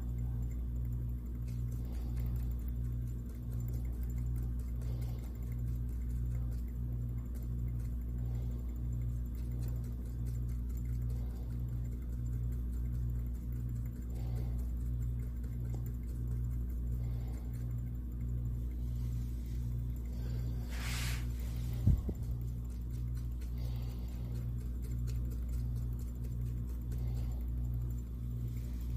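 Magnetic stirrer spinning a stir bar in a beaker: a steady low hum that pulses evenly, about one and a half times a second. A short hiss and then a single sharp knock come about three-quarters of the way through.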